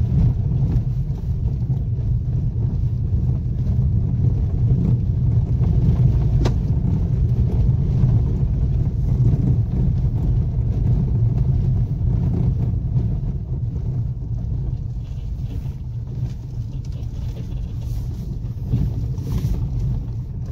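Car driving over a rough dirt track, heard from inside the car: a steady low rumble of engine and tyres that eases off a little in the second half.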